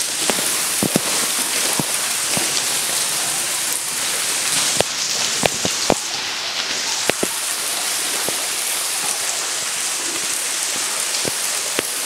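Water running and dripping: a steady rain-like hiss with sharp drips falling at irregular intervals.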